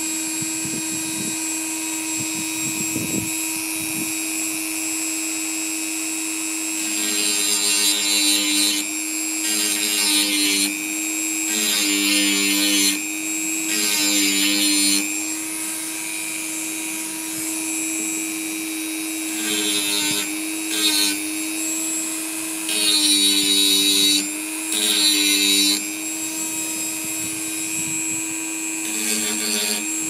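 A handheld rotary tool with a small sanding bit runs with a steady whine while it grinds the guitar's new bone nut. From about seven seconds in, the grinding comes in roughly eight short spells, and the motor pitch sags slightly each time the bit bites into the bone.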